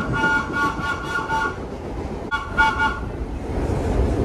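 Subway train horn sounding a rapid series of short toots on a high three-note chord, about five in a row and then two more a second later, over the rumble of the train running on the elevated track.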